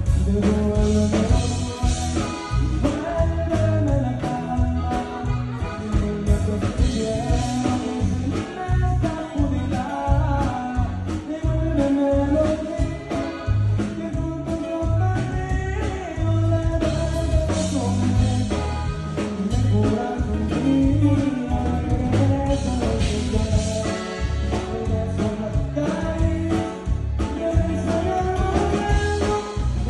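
Live band music led by a button accordion playing the melody over a steady low beat from bass and drums.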